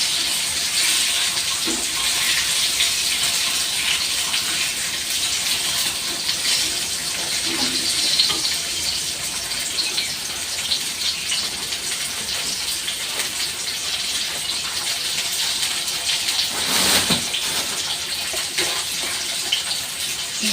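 Food frying in hot oil in a pan: a steady sizzle with fine crackling throughout and a louder flare of crackle about three-quarters of the way through.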